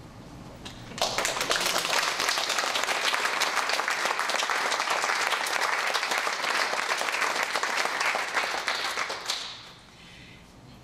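A small seated audience applauding. Dense clapping starts suddenly about a second in, holds steady, and dies away about a second before the end.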